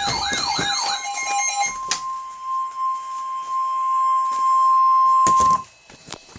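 Emergency weather alert tones. A warbling siren-like tone repeats about three times a second over a steady lower tone, then the single steady tone of the NOAA Weather Radio warning alarm, heard as one long high beep, holds for about four and a half seconds and cuts off abruptly. The alarm tone signals that a warning broadcast follows.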